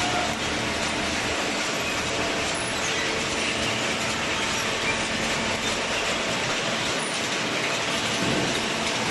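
Industrial cardboard shredder and baler running, a steady, dense mechanical noise at an even level.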